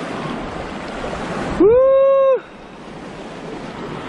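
Small waves washing over a pebble beach with wind buffeting the microphone. About one and a half seconds in, a loud pitched tone slides up, holds for under a second and drops away, with the beach sound cut out beneath it: an edited-in sound effect.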